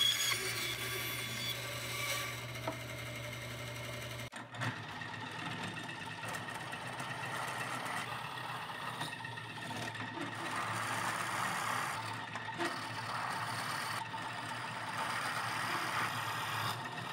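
A band saw runs with a steady hum for the first four seconds or so. Then a drill press takes over, its twist bit boring through layered plywood, the cutting noise swelling and easing as the bit is fed in.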